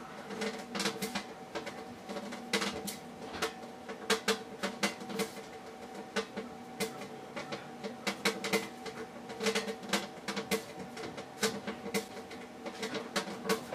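Plasma Jacob's ladder running: irregular crackling and sputtering from the plasma arc as it climbs between the rods, over a steady electrical hum.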